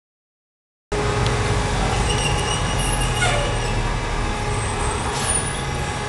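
About a second of dead silence, then a steady low mechanical rumble and hum from a 1000 lb motorcycle lift with a motorcycle on its platform, the lift's drive running as the platform moves.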